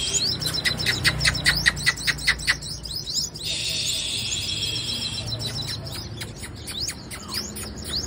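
Female sunbird singing: a fast run of short, sharp, high chirps for the first two and a half seconds, then a steady, buzzy trill for about two seconds, then scattered chirps.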